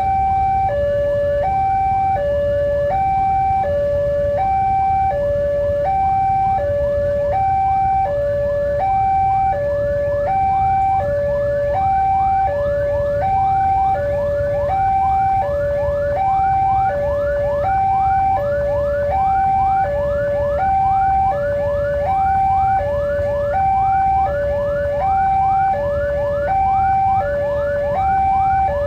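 Railway level-crossing warning alarm sounding a steady hi-lo two-tone signal, each tone lasting about three-quarters of a second, with a quicker run of short rising chirps above it. A low rumble runs underneath.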